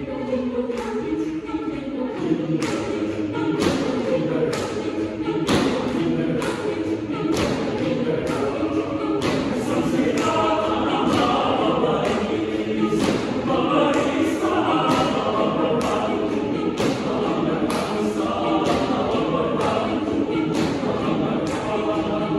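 Mixed choir singing a cappella in several parts, with sharp percussive hits from the singers' body percussion keeping a steady beat about once or twice a second.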